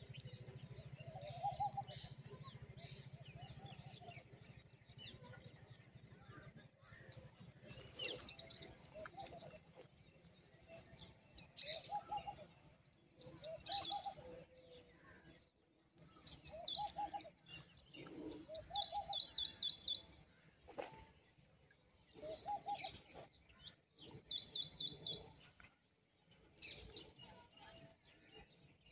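Wild birds chirping and calling: a lower repeated call recurs every couple of seconds, mixed with higher chirps and short rapid trills.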